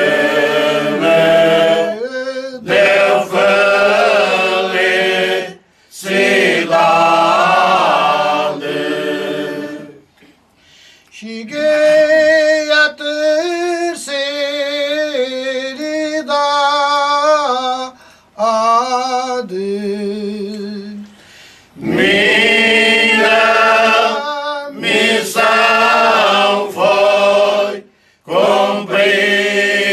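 Cante alentejano: a folk choir singing a slow moda unaccompanied, in Portuguese, in long held phrases with brief pauses for breath. Around the middle the singing thins to a lighter line of voices, and the full choir comes back in about 22 seconds in.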